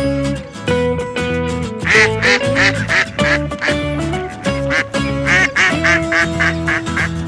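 Background music, with quick runs of short quacks over it: one run about two seconds in and a longer one from about five seconds in.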